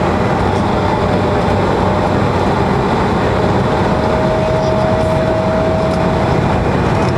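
Steady cabin noise inside an Embraer 175 airliner descending on approach: a constant rush of airflow and jet engine rumble, with a thin steady whine that gets a little stronger about three seconds in.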